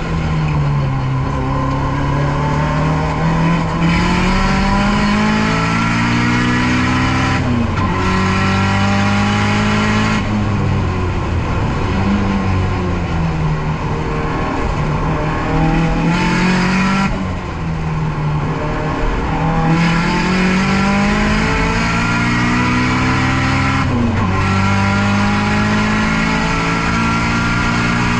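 Nissan S13's turbocharged SR20DET four-cylinder engine being driven hard. The revs climb and then drop sharply, over and over, about six times.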